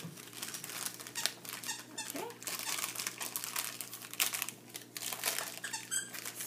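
Foil-lined snack wrapper crinkling with irregular crackles as it is peeled open by hand.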